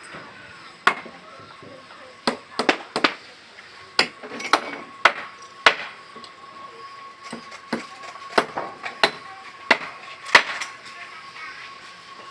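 Irregular sharp knocks of hand-tool strikes on wood, about fifteen in all, some coming in quick pairs and triples. A faint steady high tone runs beneath them from about four seconds in.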